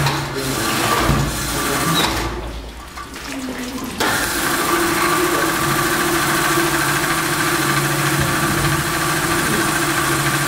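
Motor-driven polishing lathe running with a steady hum and water hiss as a cloisonné vase spins under running water and is ground down by hand with sandstone. The sound dips for a moment, then steps up suddenly about four seconds in.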